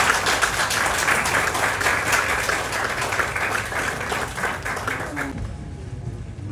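Applause from a room of people: many hands clapping densely, thinning and dying away about five seconds in.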